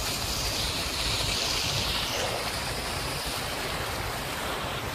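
Steady rushing noise of moving floodwater, picked up on a phone microphone.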